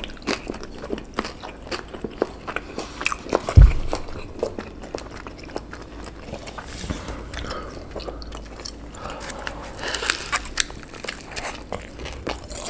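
Close-up biting and chewing of gyoza dumplings, with many small crisp crunching clicks and a denser run of them near the end. One loud low thump comes about three and a half seconds in.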